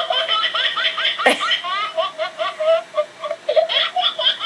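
Light-up Halloween cat figurine playing its recorded laugh through its small speaker: a high-pitched, rapid run of giggling 'ha-ha-ha' syllables, with a sharp click about a second in.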